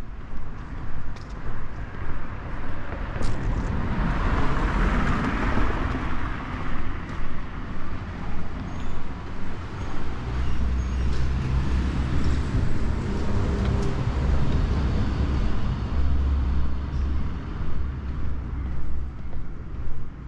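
Street traffic on a city avenue: a vehicle passes about four to six seconds in, then a low engine sound from a large vehicle carries through the second half, over the walker's regular footsteps.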